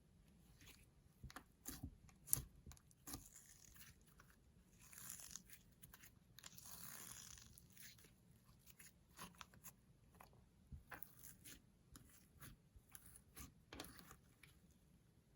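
Quiet, scattered sticky clicks and crackles of slime being mixed and squeezed by hand with makeup, with two longer hissing stretches about five and seven seconds in.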